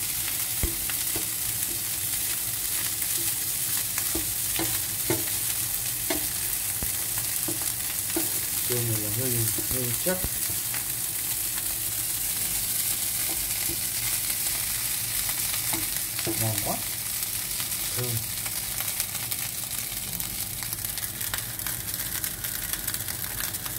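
Egg fried rice with chopped pork sausage sizzling in a frying pan, with a steady frying hiss while a wooden spatula stirs and scrapes the rice around the pan.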